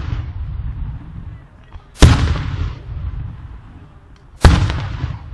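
Aerial firework shells bursting: two sharp, loud bangs about two and a half seconds apart, each followed by a rumbling echo that dies away, with the tail of an earlier burst fading at the start.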